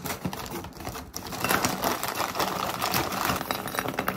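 Frozen vegetable pieces (broccoli, cauliflower, carrot and green beans) clattering onto a ceramic plate as they are shaken out of plastic bags: a dense patter of small hard clicks with the bags crinkling. Scissors snip the bag open near the start.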